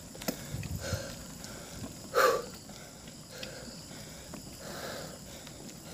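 A cyclist breathing hard on a climb, in soft repeated breaths with one sharp, louder exhale about two seconds in.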